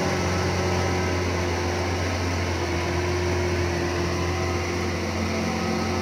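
Large off-road mining dump truck's diesel engine running steadily with a low hum as the loaded truck drives slowly across a dirt site.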